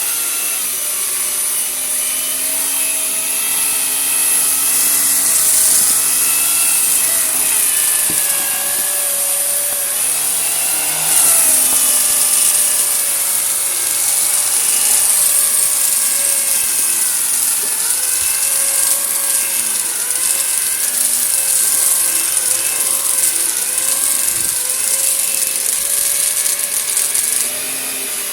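Vacuum cleaner running over a carpet and picking up gritty debris. The motor whine wavers in pitch under a strong airflow hiss, with a scratchy rasp from the grit.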